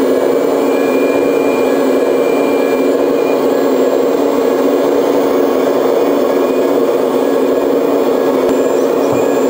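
Sound module of a hydraulic RC model Liebherr 970 SME excavator playing a steady, loud diesel engine run while the machine turns and closes its sorting grapple.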